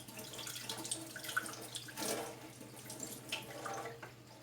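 Water running and splashing in the kitchen, an uneven trickling noise.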